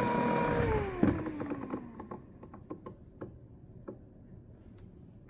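Hair dryer motor whine falling in pitch as the dryer is switched off and spins down, fading out about two seconds in; a few light scattered clicks and taps follow.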